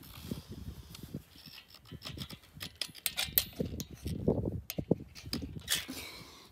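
Electric fence gate handles being unhooked and handled: irregular clicks and light metallic rattles over low thumps and rustling.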